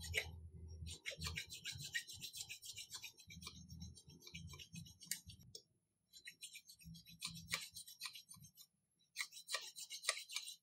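Hand filing on the aluminium cylinder head's carburetor port: quick rasping scrape strokes in runs, broken by short pauses, with a few sharp taps.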